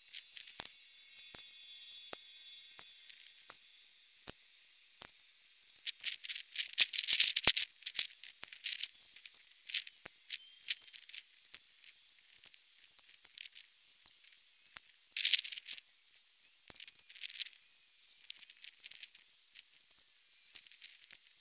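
Thin, tinny clicking and clinking from bullet casting with a Lee six-cavity mold, the mold being worked and cast bullets dropping into a pot of water. Short hissing bursts stand out, the loudest about seven and fifteen seconds in.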